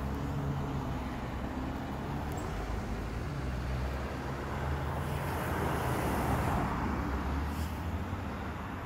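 Street traffic: a car's engine humming low and steady, with a passing car swelling to the loudest point about six seconds in.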